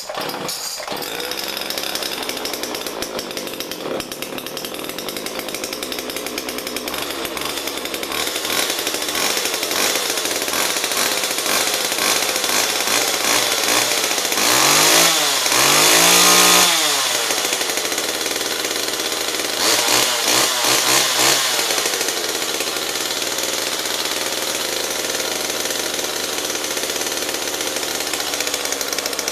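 Homelite Little XL two-stroke chainsaw running steadily after a fresh start. About halfway through it is revved up hard and let back down, then given a few quick blips of throttle.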